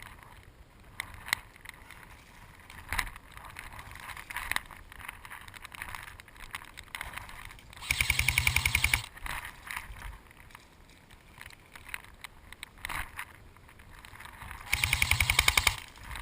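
Airsoft electric gun firing two full-auto bursts of about a second each, a rapid even rattle of shots, about eight seconds in and again near the end. Scattered single knocks come in between.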